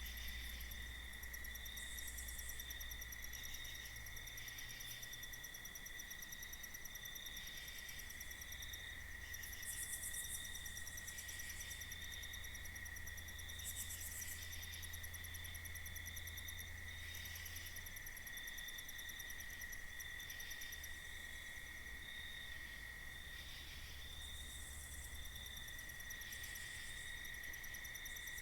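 Night-time cricket chorus: a faint, steady, high trill, with short spells of higher-pitched insect buzzing coming and going over it.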